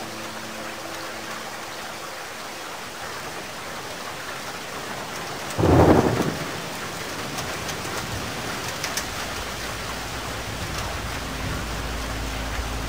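Steady rush of falling water, with one loud, sudden rumbling crash about halfway through that fades within a second. A low rumble builds toward the end.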